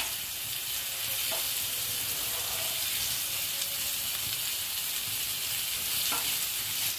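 Semolina-and-rice-flour-coated fish steaks sizzling steadily in oil on a nonstick tava over a high flame, while a spatula turns the pieces over.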